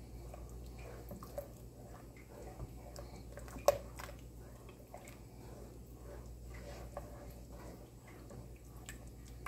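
Thick, creamy potato soup being stirred in a pot with a spatula: faint wet squelching and light utensil scrapes. One sharp click about three and a half seconds in. A low steady hum runs underneath.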